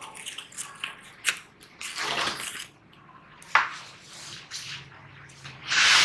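A large cardboard washing-machine carton being handled during unboxing: scattered rustles and small knocks, a sharp knock about three and a half seconds in, and a loud scraping rush of cardboard near the end.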